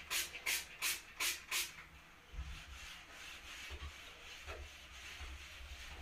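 A hand trigger spray bottle squirting onto a sponge, about five quick sprays in the first second and a half. Then a sponge rubbing softly across shower glass.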